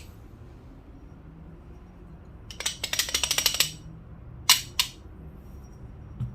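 Espresso tools being handled: a quick run of small sharp metal clicks and rattles, then two separate sharp clinks a moment apart, as a metal dosing ring is set on the portafilter.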